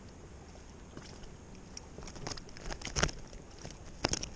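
A run of irregular clicks and taps, starting about halfway through, from a small sheepshead dangling and flapping on the line as it is handled.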